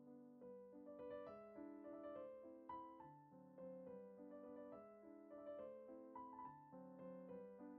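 Quiet background piano music, a continuous run of gently struck, fading notes.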